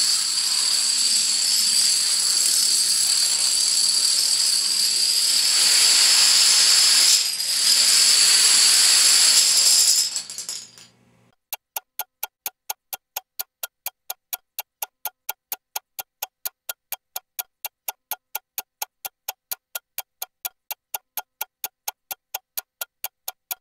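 A long chain of about 5,200 dominoes toppling in a dense, continuous clatter that dies away about ten and a half seconds in. Then a steady, rapid clock-like ticking carries on to the end.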